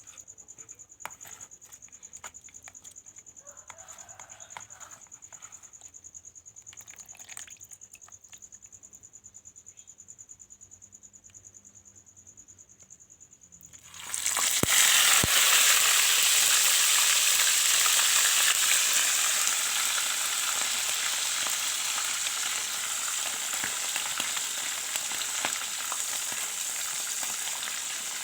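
Fish going into hot frying oil about halfway through: a sudden loud sizzle that slowly dies down as it keeps frying. Before that, a steady high insect trill and a few small clicks.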